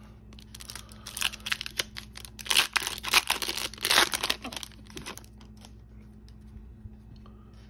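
Foil wrapper of a hockey trading card pack being torn open and crinkled by hand: a dense run of crackles, loudest in the middle, dying away after about five seconds as the cards come out.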